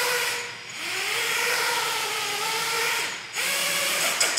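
FPV quadcopter's brushless motors and propellers whining in a low test hover, the pitch wavering up and down with the throttle. The sound drops away briefly twice, about half a second in and again near three seconds.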